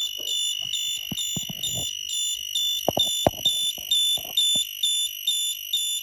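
Electrician's voltage tester sounding its warble, a high beep repeating about two to three times a second over a steady high tone, as its probes are put across the socket's line and neutral. Short clicks and knocks of probe handling come between about one and four and a half seconds in.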